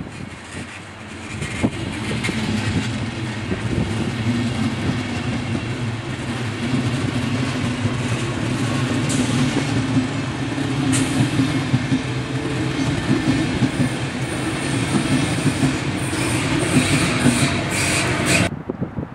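Intercity passenger coaches running past on the rails, pushed by an electric locomotive: a steady rumble that swells over the first few seconds, with clacking of the wheels over the rail joints that grows denser and loudest near the end. The sound cuts off abruptly shortly before the end.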